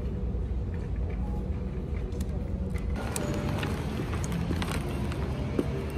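Steady low background rumble, with scattered clicks and rustles joining about three seconds in.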